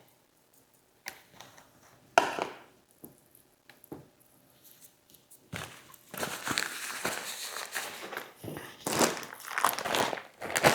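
Plastic packaging crinkling and rustling as it is handled: a few scattered clicks and taps at first, then steady dense crinkling from about halfway through.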